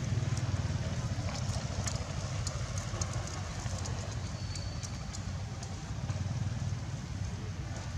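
Steady low rumble with scattered light crackles and clicks from a young long-tailed macaque picking at a dry, crumbling tree stump.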